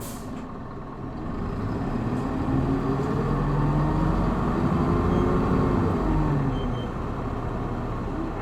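Hino Blue Ribbon city bus's six-cylinder diesel heard from inside the cabin: a short hiss of air at the start, then the engine climbs in pitch and gets louder under hard acceleration, before its pitch drops back and it quietens near the end.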